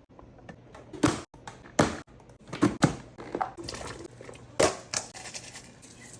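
Kitchen clatter: a run of irregular knocks and clunks, as of pots, lids or utensils being handled, with about six sharper ones between one and five seconds in.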